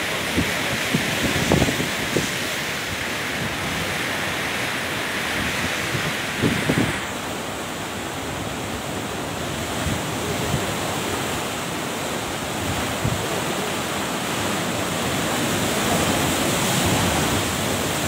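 Wind blowing across the microphone over rough sea, a steady rushing noise with a few brief buffets; the higher hiss drops away about seven seconds in.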